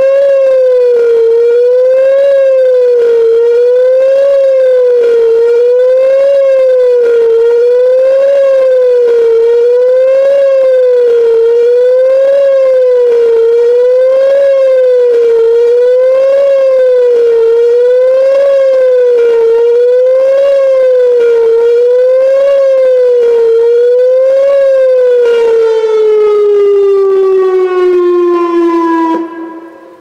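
Whelen WPS-2910 electronic siren sounding the Attack signal: a loud wavering tone that rises and falls about once every two seconds. Near the end it glides steadily down in pitch and cuts off as the signal ends.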